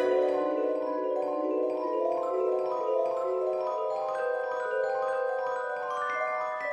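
Background music: a melody of short notes on a mallet-percussion instrument.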